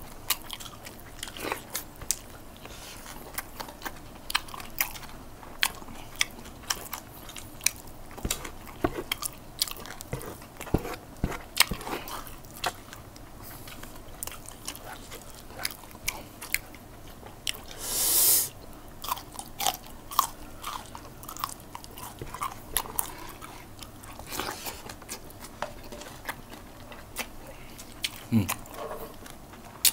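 Close-up mouth sounds of two people eating chicken adobo and rice with their hands: wet chewing and lip smacking, with many short sharp clicks. About eighteen seconds in there is a louder hiss lasting about a second.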